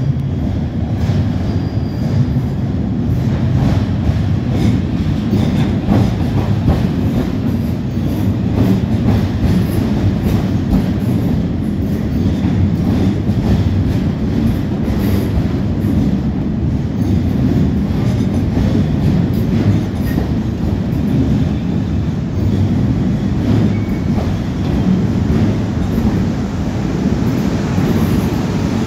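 Two coupled Class 450 Siemens Desiro third-rail electric multiple units running in along the platform, a steady low rumble of wheels and running gear.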